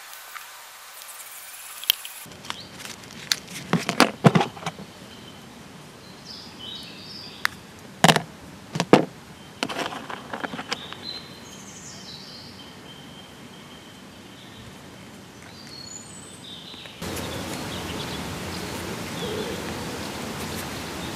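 Outdoor ambience with birds chirping now and then over a quiet background hiss, broken by a series of sharp knocks and clicks, the loudest around four and eight to nine seconds in. About seventeen seconds in the background jumps to a louder, steady hiss.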